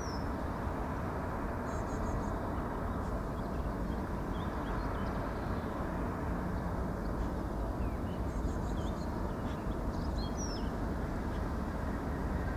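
Steady low outdoor rumble with small birds chirping and twittering every few seconds.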